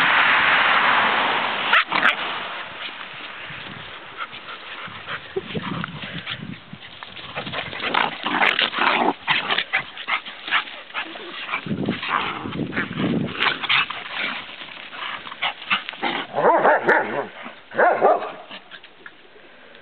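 Dogs barking and yipping in short, irregular bursts while they play-fight, loudest near the end, after a rush of noise in the first second or so.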